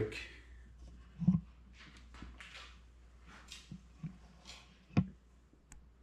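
Camera being picked up and carried: handling bumps on the microphone, the loudest about a second in, a sharp knock about five seconds in, and faint rustling between.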